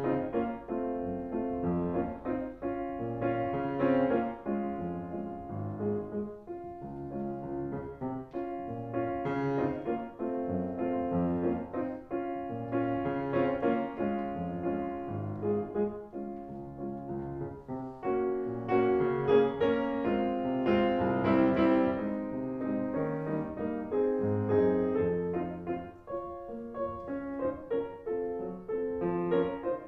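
Background piano music: a flowing melody over chords, with notes struck in quick succession and getting louder for a while about two-thirds of the way through.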